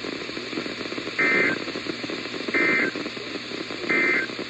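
Emergency Alert System SAME end-of-message data signal: three identical short bursts of two-tone digital warble, about a second and a half apart, marking the end of the alert broadcast. A steady radio static hiss runs underneath.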